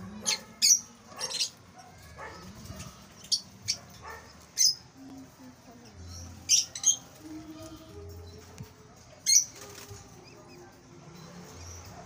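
Lovebirds giving short, shrill chirps, singly or in quick pairs, at irregular intervals.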